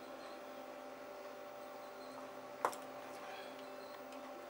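Steady electrical hum with faint small ticks, and one sharp click about two and a half seconds in as a tool pries at the Samsung Galaxy S4's frame.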